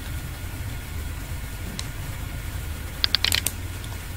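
A steady low background hum, with a quick run of about five sharp computer-key clicks about three seconds in and a single faint click a little before that.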